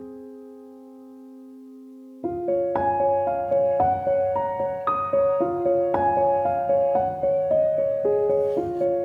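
Gentle piano music: a held chord fades out, then a little over two seconds in a soft, repeating pattern of single notes begins.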